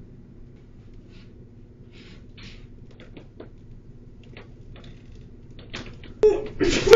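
Faint scattered clicks and rustles of someone handling things at a wire cage, over a low steady hum. A woman's voice breaks in loudly near the end.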